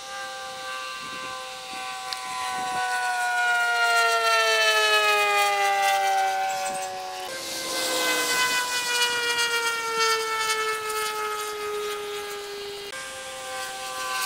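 Propeller airplane engines droning overhead, sped up so the drone sounds unnaturally high, each pass slowly falling in pitch. The sound jumps abruptly to a new pass about seven seconds in and again near the end.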